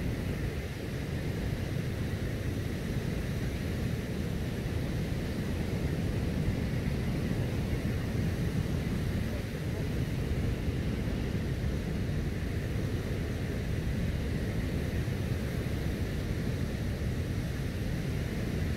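Steady low rumble of wind buffeting the microphone, mixed with the wash of surf breaking on the beach.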